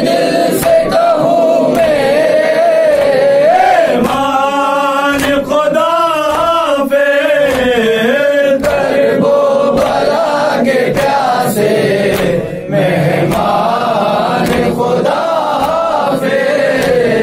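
Men's voices reciting a nauha, a Shia mourning lament, together in a chant. Sharp slaps, typical of matam chest-beating that accompanies it, recur through the singing.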